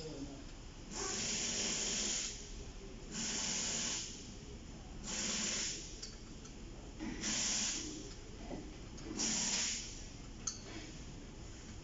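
Five evenly spaced hissing bursts, each a little over a second long and about two seconds apart, followed by a single sharp click near the end.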